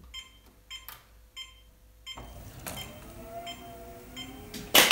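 NordicTrack treadmill console giving a few short beeps, then the treadmill motor and belt start running about two seconds in, with a steady whirr and a faint motor whine. A loud burst of noise comes near the end.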